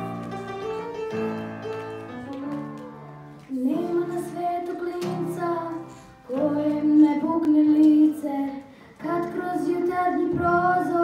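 Upright piano playing an introduction, then children start singing along with it about three and a half seconds in, in short phrases over the piano accompaniment.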